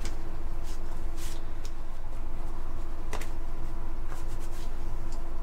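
A baby wipe rustling and rubbing over an ink-covered paint roller as it is wiped clean, in a handful of short rustles, over a steady low hum.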